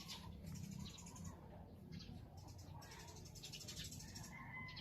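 Faint bird chirps, short and repeated, over a low steady hum.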